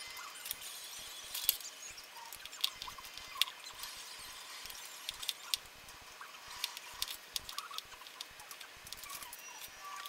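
Small irregular plastic clicks, taps and scrapes from hands handling and fitting parts to a plastic computer case fan.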